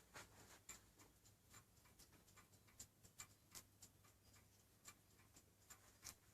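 French four-glass mantel clock ticking faintly, about two to three ticks a second, from its eight-day movement's visible escapement swinging a mercury pendulum.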